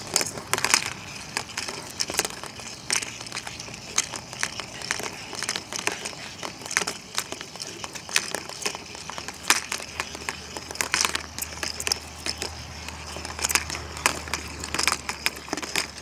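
Two battery-powered Weasel Ball toys, plastic balls dragging fake-fur weasels, rolling around a plastic laundry basket, with irregular rattling, clicks and knocks as they bump the basket walls and each other.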